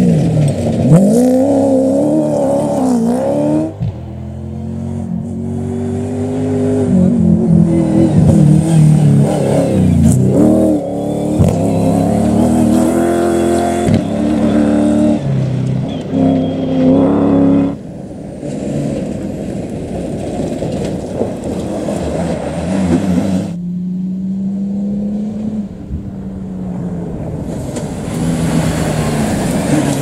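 Off-road rally cars racing past one after another on a dirt stage, their engines revving hard with the pitch rising and falling. The sound changes abruptly several times as one car's pass gives way to the next.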